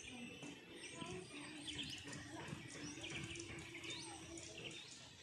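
Birds chirping: many short, high calls in quick succession.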